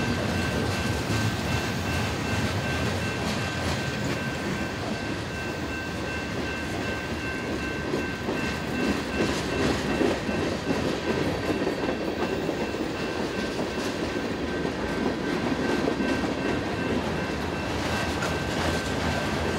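Freight cars of a passing train rolling by: steady wheel-on-rail noise with clickety-clack as the wheels cross the rail joints, a little louder about halfway through. Two steady high ringing tones run through it and stop near the end, matching the grade crossing's warning bell.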